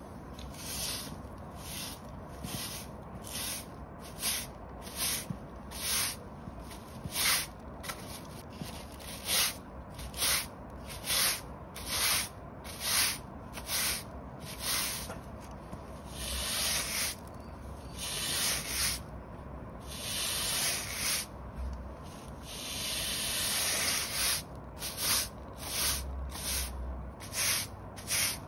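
Stiff-bristled push broom sweeping dirt and leaves across block paving, its bristles scraping the bricks. It makes a run of short quick strokes, about one a second, then several longer drawn-out strokes in the second half.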